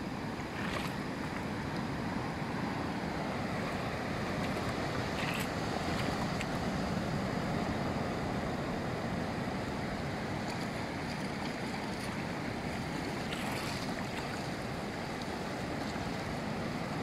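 Steady sound of surf washing in over a shallow sandy beach, with some wind on the microphone.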